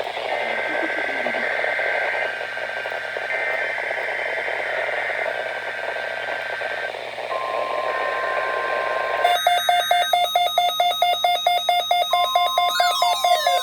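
NOAA Weather Radio SAME header: three bursts of warbling two-tone digital data, each about two seconds long with short gaps, over radio static. At about nine seconds a beeping electronic tune with rising and falling sliding tones takes over.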